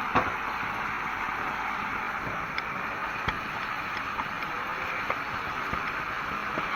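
Frog meat sizzling as it fries in a pan: a steady hiss with a few short, sharp knocks, the loudest just after the start.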